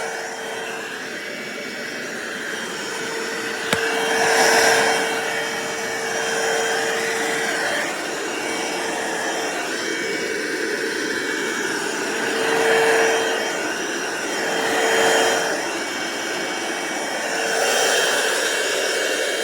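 Cordless stick vacuum cleaner running steadily with a constant motor whine, vacuuming up spilled bird seed from the floor. The suction noise swells and fades every few seconds as the head is pushed back and forth, with one short click about four seconds in.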